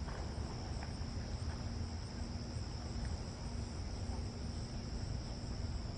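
Insects trilling steadily in a high, even band, over a low rumble of wind on the microphone.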